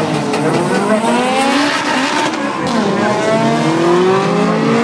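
Two drag-race cars launching from the start line and accelerating hard down the strip. Their engines rise in pitch, drop back at each gear change and rise again.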